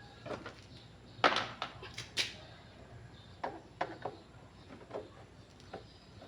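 Irregular light knocks and clicks, a few to the second. The sharpest is about a second in, and two more come a second later.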